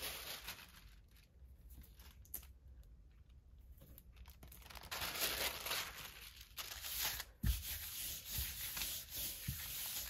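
A sheet of thin tissue paper rustling and crinkling as it is handled, laid over a gel printing plate and rubbed down by hand. The rustling starts about five seconds in, with a light thump partway through.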